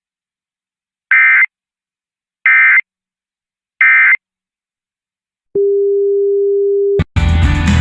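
Emergency Alert System digital data bursts: three short, loud, buzzy screeches of data tones, a little over a second apart. They are followed by a steady single low tone for about a second and a half. Music starts abruptly near the end.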